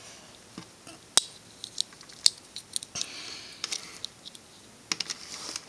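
Plastic pieces of a Rubik's 2x2x4 tower cube clicking and scraping as they are fitted onto the puzzle by hand: scattered sharp clicks, with a short rubbing sound about three seconds in.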